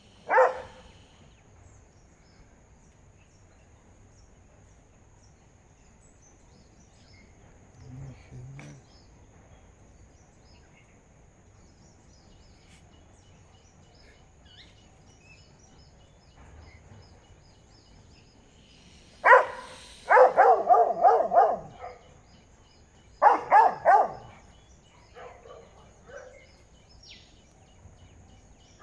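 Dogs barking at an Asian water monitor they have chased up a coconut palm: a single bark at the very start, then after a long lull a quick run of barks about nineteen seconds in and another short burst a few seconds later. A faint steady high whine sits underneath.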